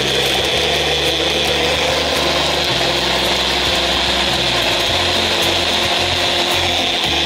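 Personal bullet-style blender switched on and running at full speed, its blades whirring through water and burnt matchsticks. It starts abruptly and then runs steadily.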